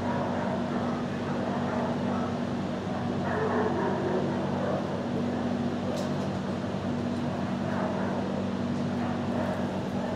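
Dog shelter background: a steady low machine hum under muffled barking from other dogs, with a single click about six seconds in.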